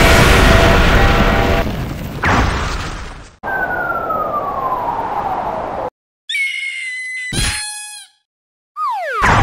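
Cartoon sound effects: a loud rushing blast like a rocket launch lasting about three seconds, then a long descending whistle as something flies off. After a brief silence come about two seconds of high, bending tones, then a quick falling whistle that ends in a loud boom.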